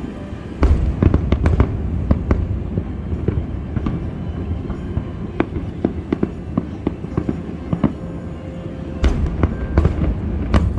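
Fireworks display: a rapid series of sharp bangs and crackles from bursting shells over a continuous low rumble, which grows heavier just under a second in and again near the end.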